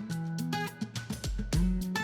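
Background music: guitar with bass and drums, plucked notes over a steady beat.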